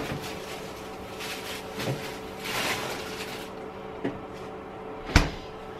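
Small refrigerator door opened and leftover cabbage rustled into it, with a few light knocks, then the door shut with a sharp thump about five seconds in. A steady low hum runs underneath.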